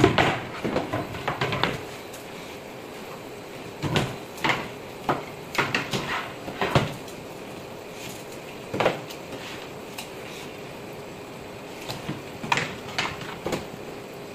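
Wooden drawer panels and strips being handled and set down on a worktable: scattered sharp knocks and clicks in short clusters, with quiet stretches between.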